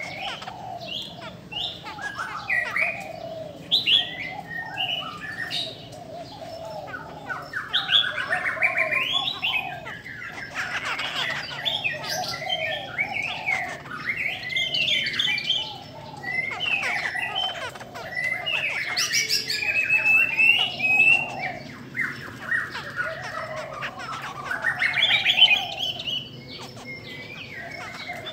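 Caged laughingthrushes (khướu) singing and calling together, a dense, unbroken run of varied whistles and chattering phrases over repeated lower notes. A female is among them, kept to set males singing.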